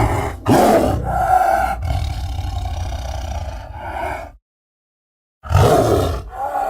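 Designed Mapusaurus dinosaur calls: deep animal-like calls run together for about four seconds and cut off abruptly, then after a second of silence another call starts near the end.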